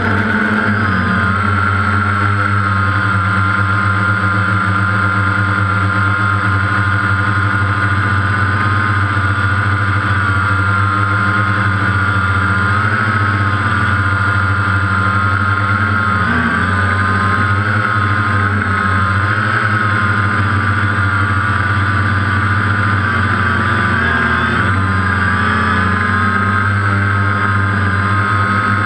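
DJI Phantom quadcopter's motors and propellers whining steadily, the pitch wavering slightly as the drone holds and adjusts its hover.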